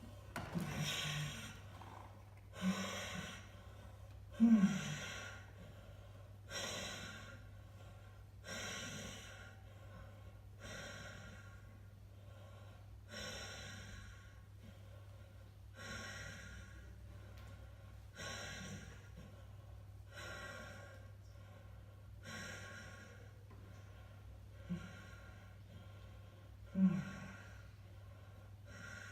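A man breathing hard and rhythmically, about one breath every two seconds, while sitting in 1 °C ice water, the strained breathing of cold-water shock. There are short pained groans in the first few seconds and two more near the end.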